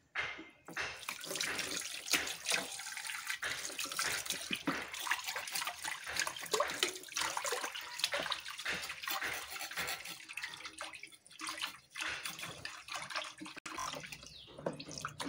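Water running from a tap into a sink with irregular splashing and clattering, as when fish is washed by hand under the tap.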